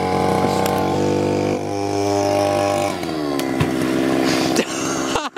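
Belarus BK52 petrol string trimmer's two-stroke engine running under load as the outboard motor of a homemade inner-tube boat. Its pitch shifts several times as the throttle is worked.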